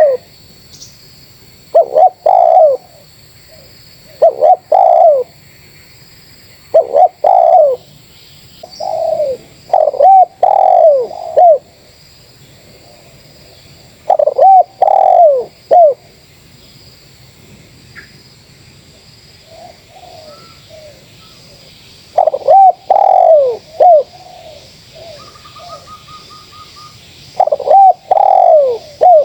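Spotted doves cooing: a loud nearby bird repeats short phrases of two or three falling coos every couple of seconds, with fainter answering coos in between. A faint steady high insect-like hum runs underneath.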